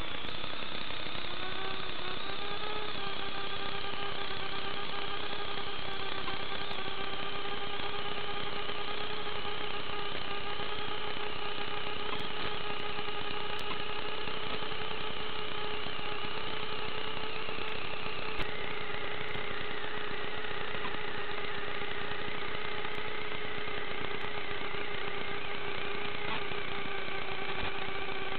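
Micro FPV quadcopter's motors and propellers humming at a nearly steady pitch, heard over hiss through the onboard camera's microphone and the analog video transmitter's audio link, with no highs. The pitch rises a little about a second in, and there is one brief click about two-thirds of the way through.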